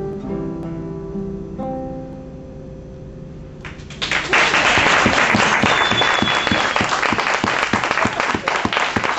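Three classical guitars play the closing notes of a piece, and the last chord rings out and fades. About four seconds in, audience applause breaks out loudly and keeps going.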